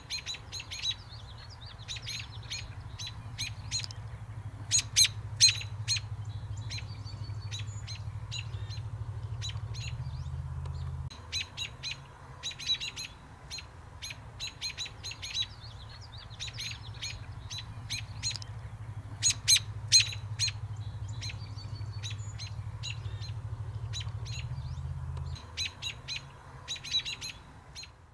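American robins giving sharp alarm calls in quick bursts, the mobbing calls robins make at a kestrel near their nest. A steady low hum runs underneath and stops about 11 seconds in and again about 25 seconds in.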